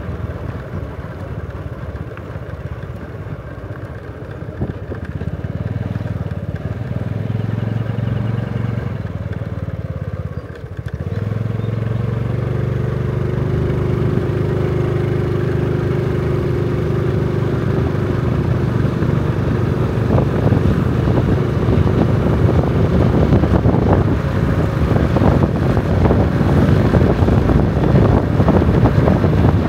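A vehicle engine running steadily. About ten seconds in it briefly drops off, then picks up again and runs on at a steady pitch, getting slightly louder toward the end.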